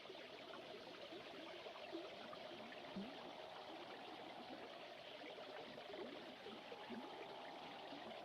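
Faint recording of a babbling creek, water trickling and gurgling steadily over stones, with a faint steady tone underneath.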